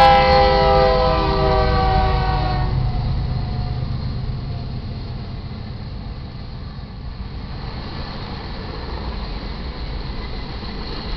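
Freight locomotive's multi-note air horn sounding one long blast of about two and a half seconds, right after a short one: the end of the grade-crossing horn signal. Then the locomotives and the freight cars roll past with a steady low rumble.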